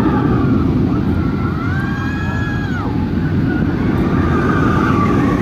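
Roller coaster train on a Vekoma giant inverted boomerang, a steady loud rumble. Riders' screams waver above it, one held for about a second about two seconds in.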